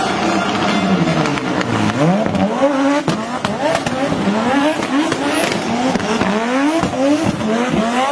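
Audi Sport Quattro S1's turbocharged five-cylinder engine revving hard while the car spins tyre-smoking donuts. The note falls for about the first two seconds, then shoots up again and again, about twice a second, over the noise of spinning tyres.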